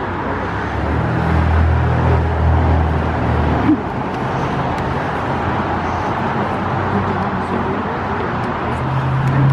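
Road traffic: a motor vehicle's engine hum over tyre and road noise. The noise builds over the first second or so. A low steady drone is heard until about three and a half seconds in, and another comes in near the end.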